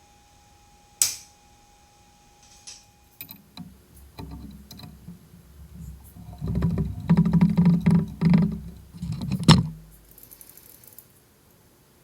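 A sharp click, then a run of irregular clicks, clatter and knocks, like things being handled on a workbench. The clatter builds and ends with a loud knock near the end.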